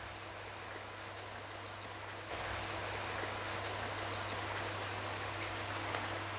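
Steady hiss with a low steady hum, growing slightly louder about two seconds in, and one faint click near the end.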